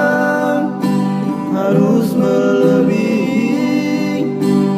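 A gospel song with acoustic guitar accompaniment and a singer holding long, drawn-out notes.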